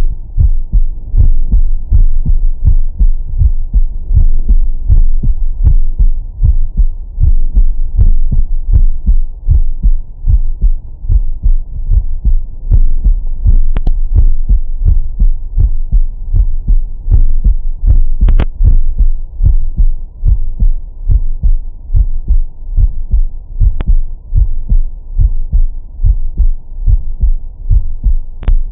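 A man's heartbeat picked up through a Stemoscope digital stethoscope on the chest, with the 20–1000 Hz filter: a steady run of deep lub-dub thumps. A few sharp clicks stand out, from about halfway on and once near the end.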